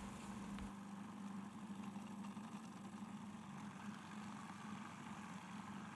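Countertop blender's motor running steadily with a quiet, even hum while its blades churn frozen strawberries, frozen banana and mascarpone into a thick ice-cream mix.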